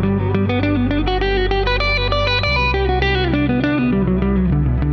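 Electric guitar playing a variation of a G major 7 arpeggio pattern as a quick run of single picked notes, climbing to a peak about two seconds in and then descending, over a held backing chord and bass that change about halfway through.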